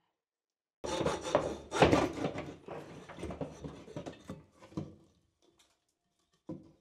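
Wooden framing being wrenched out of a ceiling hatch opening, scraping and knocking against the joists and plasterboard. It starts about a second in, is loudest soon after and dies away after about four seconds, with a short knock near the end.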